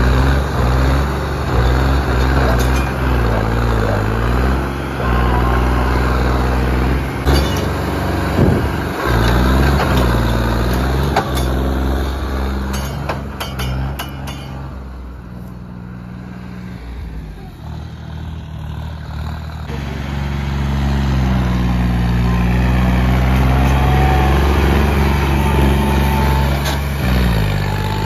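John Deere tractor's diesel engine revving hard under load, its pitch rising and falling again and again. It fades for a few seconds in the middle as the tractor drives away, then comes back loud.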